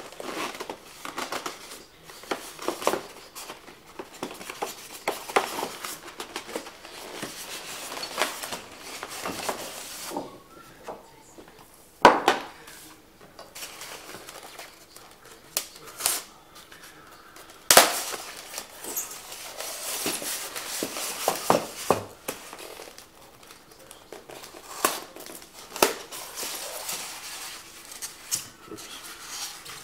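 Cardboard box and white foam packing trays being handled and pulled apart: irregular rustling and scraping with scattered clicks and knocks, two louder sharp knocks standing out near the middle.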